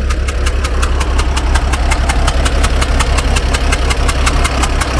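Magirus Deutz truck's air-cooled Deutz diesel engine running at idle, with a regular ticking knock, about seven or eight a second, over its low rumble. It is a new, abnormal noise, which the owners suspect comes from straining the engine on a hard mountain climb.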